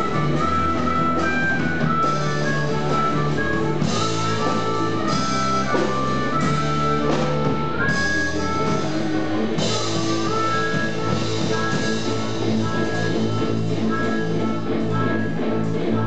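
Live blues band playing an instrumental passage: a harmonica plays held notes over electric guitar, bass guitar and a drum kit.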